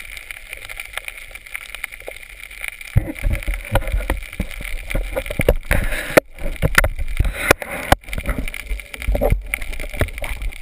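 Muffled underwater sound picked up by a camera in a waterproof housing: a steady hiss at first, then from about three seconds in, irregular low thuds and sloshing as water moves against the housing near the surface.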